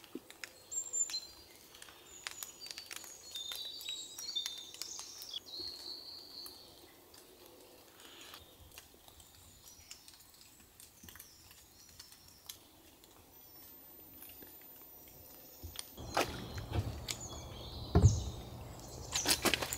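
Quiet wet-woodland ambience: rain dripping in scattered small ticks, with birds chirping faintly. Late on, louder rustling and knocks come in, with one heavy knock.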